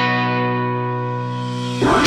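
Background rock music: a held, effects-laden electric guitar chord rings and slowly fades, then a quick rising slide just before the end leads back into the full band.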